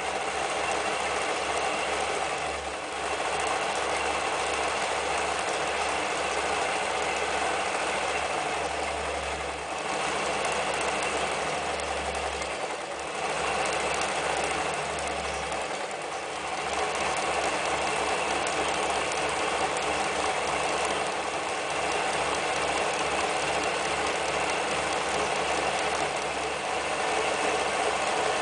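Janome New Home 110 electric sewing machine running steadily, its needle driving zigzag stitches through thick fabric. It eases off briefly a few times, then runs on at speed.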